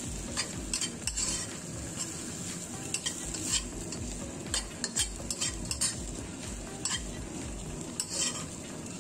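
Metal spatula stirring and tossing fried rice in a hot wok: a steady sizzle of frying, with frequent irregular clicks and scrapes of the spatula against the pan.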